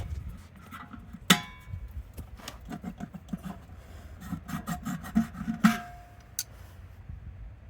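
Metal clanks and scraping as a stuck truck wheel is worked off its hub: two sharp, ringing metal strikes, about a second in and again near six seconds, with runs of quick low knocks and rubbing between them.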